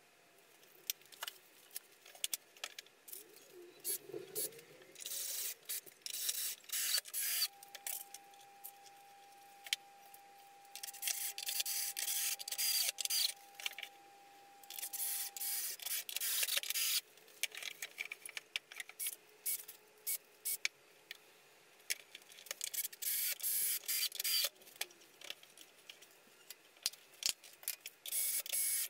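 Cordless drill driving screws into a softwood timber frame in repeated short bursts, with knocks and rubbing of the wood being handled between them.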